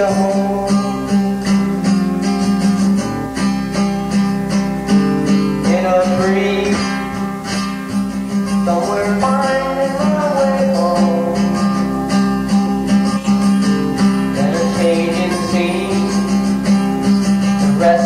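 Acoustic guitar strummed in a steady rhythm, playing back from a 1983 cassette recording, with a few sliding high notes over it.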